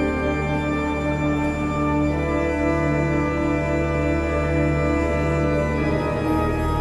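Organ music: held chords over a steady bass, the upper notes moving slowly, with the harmony shifting about six seconds in.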